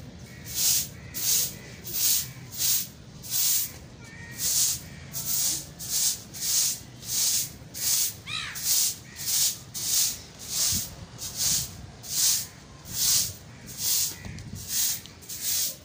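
Hand broom of thin sticks sweeping a concrete floor, a regular scratchy swish about three strokes every two seconds.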